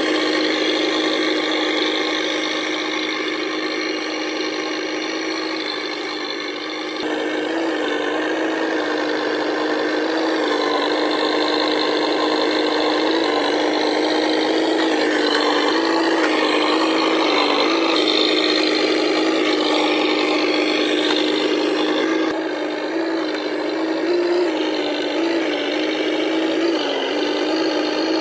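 Simulated V8 engine sound from the RC Humvee's onboard sound unit: a steady idle with small rises in pitch now and then, more of them toward the end, under a rasping mechanical noise.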